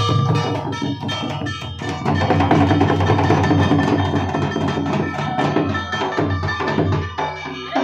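Santali folk barrel drums beaten in a fast, dense dance rhythm, with sustained tones held over the drumming; the playing dies away near the end.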